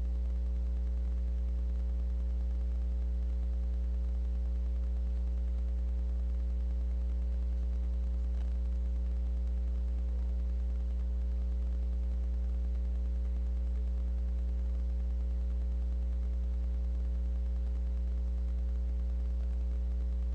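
Steady low electrical hum with faint higher tones above it, unchanging throughout.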